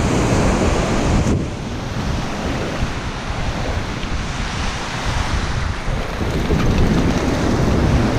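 Wind buffeting the microphone over the steady rush of ocean surf. The wind noise eases about a second and a half in and picks up again about six seconds in.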